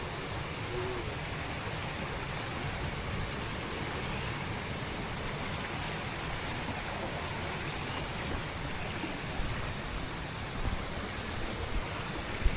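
Steady rush of water pouring over Minneopa Falls, a waterfall.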